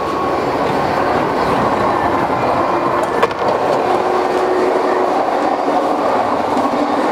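Amtrak passenger train running, heard from the car-end corridor and the gangway between cars: a loud, steady rumble and rattle of the moving cars, with one sharp knock about three seconds in.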